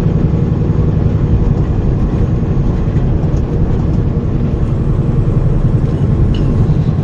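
Steady low rumble of a car on the move: engine and tyre noise on the road.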